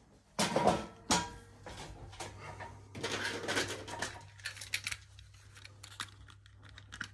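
Two loud knocks about half a second and a second in, then a plastic storage drawer rattling and LEGO pieces clattering, with scattered small clicks as parts are picked out by hand.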